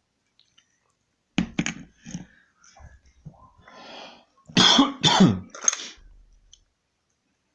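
A person coughing: two quick coughs about a second and a half in, then a louder run of three or four coughs near the end.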